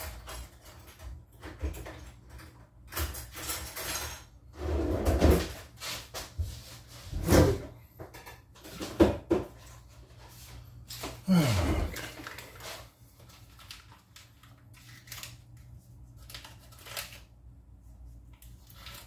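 Kitchen clatter as a frying pan is got out: cupboard doors and drawers opening and closing, with cookware knocking and scraping. The loudest scrapes come about seven and eleven seconds in, and the sounds thin out to a few light taps over the last few seconds.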